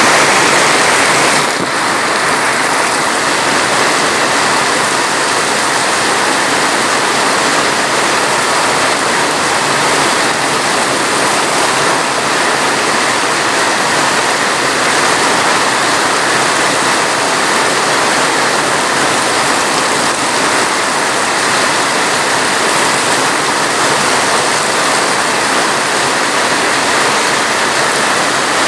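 Rain falling steadily: an even rushing hiss that eases slightly about a second and a half in.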